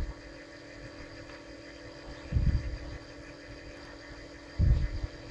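A dull low thump about every two and a half seconds as a paper-wrapped cylindrical firework shell is turned and handled during string spiking, over a steady mechanical hum.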